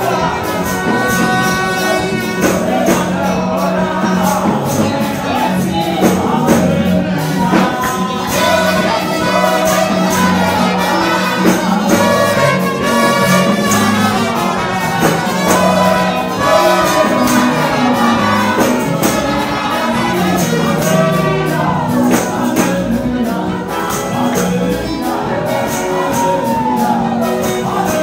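Live gospel praise music through a PA: a man singing into a microphone over a band with a steady beat.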